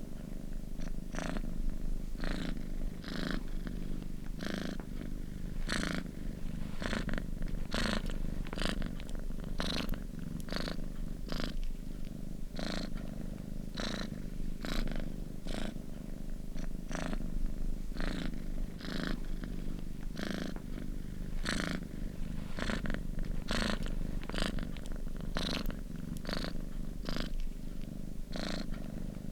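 Domestic cat purring steadily and close up: a continuous low rumble with short crackly pulses about twice a second.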